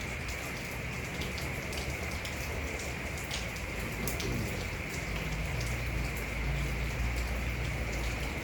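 Steady rain falling: an even hiss with a few sharper drops tapping now and then.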